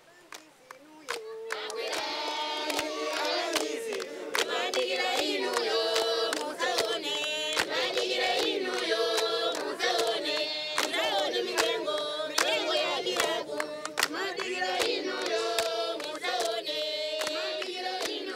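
A choir of voices singing together in harmony, with sharp percussive beats running through it. It fades in over about the first second.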